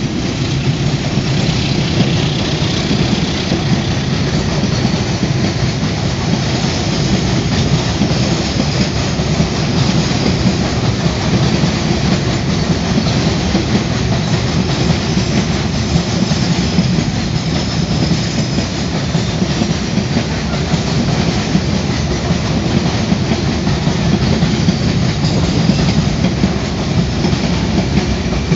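Container freight train's loaded flatcars rolling past: steady, loud wheel-and-rail noise with no break.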